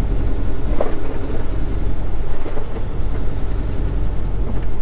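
Inside a moving semi-truck cab: the diesel engine running steadily with a low rumble and road noise as the truck drives along.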